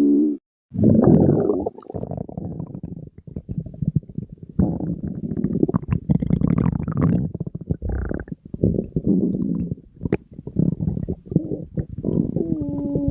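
Human stomach growling: a string of irregular gurgling rumbles with short gaps between them, a brief silent break about half a second in, and a higher, pitch-gliding growl near the end.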